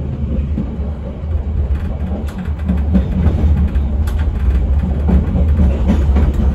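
Passenger train running along the track: a steady low rumble of steel wheels on rails, with a couple of sharp clicks about two and four seconds in.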